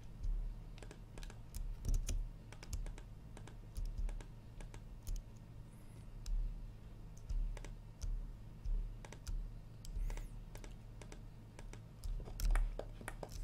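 Computer keyboard keystrokes and mouse clicks at an irregular pace, the shortcut and click work of 3D modelling software, over a low steady electrical hum.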